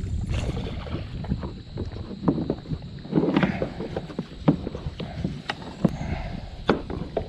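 Water lapping and knocking against a plastic fishing kayak's hull, with a scatter of sharp little knocks and a steady low rumble of wind on the microphone.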